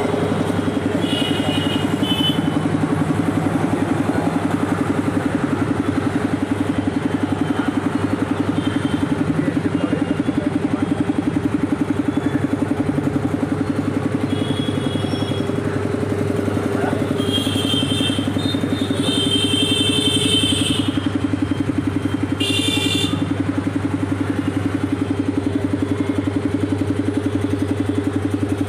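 Belt-driven 3 HP double-piston air compressor, powered by a 2 HP single-phase Crompton electric motor, running steadily with a fast, even pulsing chug. A few brief high-pitched sounds cut in over it about two-thirds of the way through.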